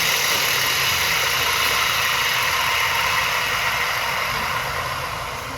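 Electric chainsaw running steadily at full speed, incredibly loud, fading somewhat near the end.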